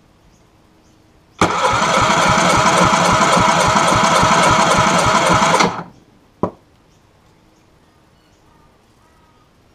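Yamaha 50 HP four-stroke outboard cranked over by its starter motor for about four seconds with a quick, even beat, without firing, during a compression test of cylinder 1, which reaches barely 100 psi, below the 120 psi minimum. A single sharp click follows soon after the cranking stops.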